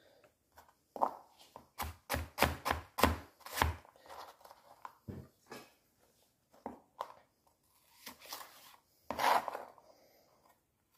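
Chef's knife chopping stacked carrot sticks on a towel-covered board: a quick run of about eight cuts about a second in, then scattered lighter cuts, and a short scrape near the end.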